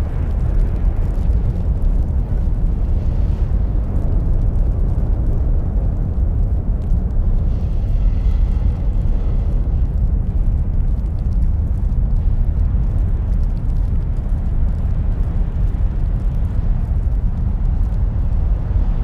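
A loud, steady low rumble with no clear pitch or rhythm.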